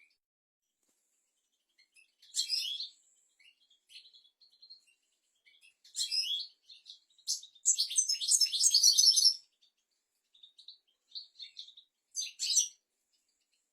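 European goldfinch singing: phrases of quick, high twittering notes with short single notes between them, the longest and densest run of notes about seven to nine seconds in.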